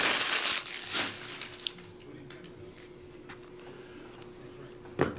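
Foil trading-card pack wrapper crinkling and tearing for about half a second at the start, with a shorter crinkle about a second in, then soft rustling and light taps as the stack of cards is handled.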